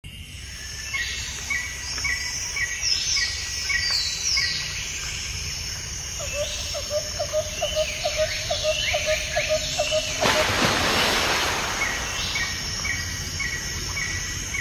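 Night-time chorus of calling frogs and insects: many short chirping calls repeat over a steady background, with a run of quick low clicks at about four a second in the middle. A brief burst of rushing noise comes about ten seconds in.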